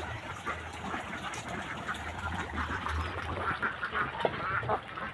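A flock of ducks quacking, many short calls overlapping one another, with a low rumble underneath.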